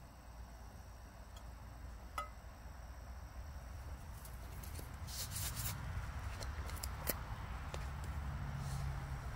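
Small handling sounds: a sharp click about two seconds in, a brief rustle around five seconds, and another click about seven seconds in, over a steady low rumble, with a faint low drone coming in near the end.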